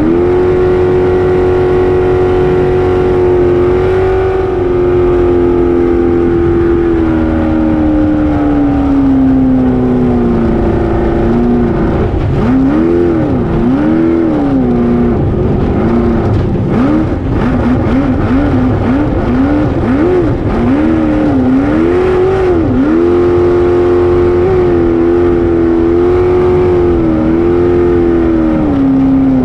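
Race jet boat's engine running hard at high revs, heard from on board. Its note holds steady, sags slowly, then rises and falls quickly over and over through rough water, and settles back to a steady high note near the end.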